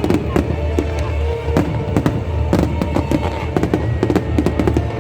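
Fireworks going off in rapid, irregular bangs and cracks, coming thicker toward the end, over loud music with a heavy bass.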